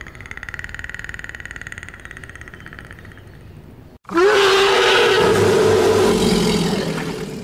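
A faint buzzing drone, then about four seconds in a loud, harsh roar sound effect that holds for a few seconds and fades near the end.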